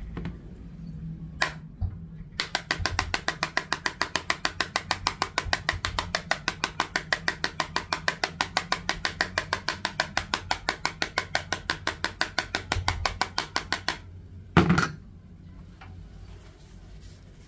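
A metal tool scraped hard back and forth across the Samsung Galaxy A04's Gorilla Glass 3, in quick, even strokes of about six a second for some eleven seconds: a scratch test of the glass. A brief click comes before the strokes, and a single louder knock follows them near the end.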